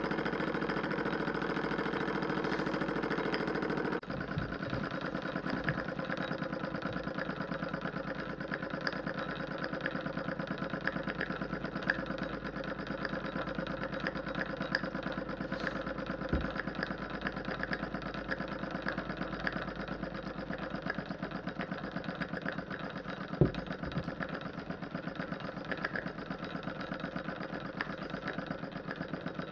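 Small model steam engine with a single oscillating cylinder running steadily at speed, a fast, even mechanical beat. There are a few sharper clicks, the loudest about three-quarters of the way through.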